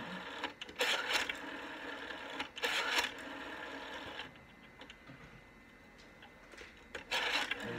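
Vintage rotary telephone dial wound round and spinning back, each return a short whirring run of pulse clicks, three times. The line reads these pulses as hook flashes, so the call does not go out.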